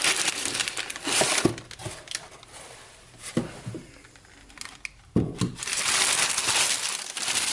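Packaging crinkling as it is handled, in bursts with a quieter stretch in the middle, and a few light knocks.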